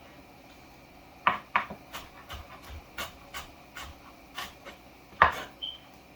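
A series of about a dozen light, irregular knocks and clicks of kitchen utensils over about four seconds, the last one the loudest.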